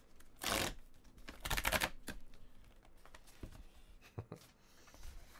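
Glossy foil wrapper of a trading-card pack crinkling and tearing open in two short rips about a second apart, followed by a few faint handling clicks.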